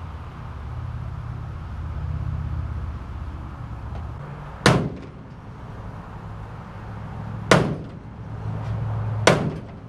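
Three loud sledgehammer blows on a pickup's bent chrome steel bumper, knocking it back into shape, over a steady low rumble. The second blow comes about three seconds after the first and the third a second and a half later, each ringing briefly.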